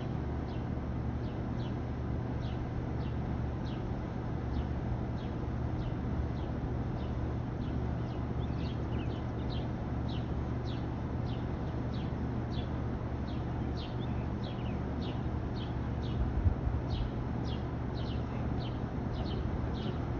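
A bird chirping over and over in short, high, down-slurred chirps about two a second, over a steady low rumble.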